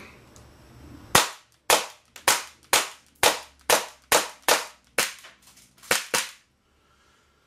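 Gas-powered airsoft Glock pistol firing about a dozen shots, roughly two a second, each a short, sharp report. The shooting starts about a second in and stops after about six seconds.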